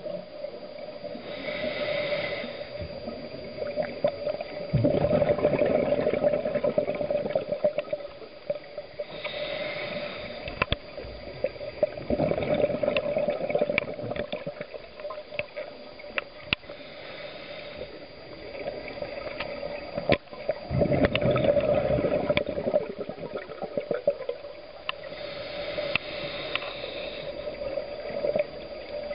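Scuba diver breathing through a regulator underwater: a short, high hiss of inhalation about every eight seconds, each followed by a longer, louder rush of exhaled bubbles, with scattered sharp clicks between breaths.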